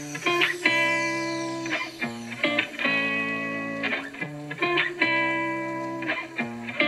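Guitar-led music playing from the Samsung Galaxy Tab S6 Lite 2022's two side speakers as a speaker audio test, with held notes changing about once a second.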